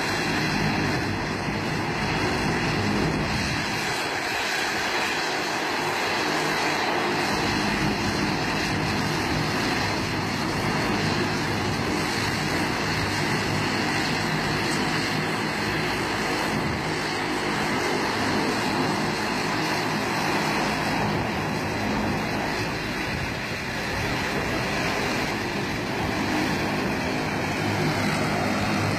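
Twin-engine turboprop airliner taxiing close by, its engines and propellers giving a steady, continuous drone with a low hum.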